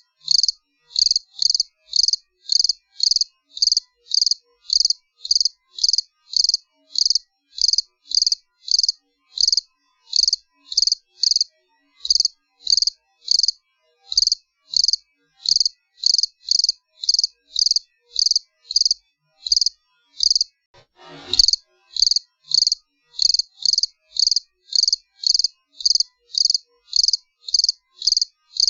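Cricket chirping in an even rhythm, about two short high-pitched chirps a second with silence between them. There is a brief thump about three-quarters of the way through.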